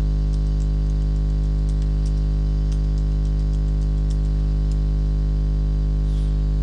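A loud, steady electrical hum made of many stacked pitches, with faint, irregular computer keyboard clicks from typing scattered over it.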